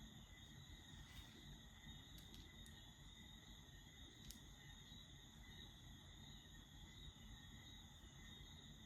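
Near silence: faint room tone with steady high-pitched tones and a few faint clicks.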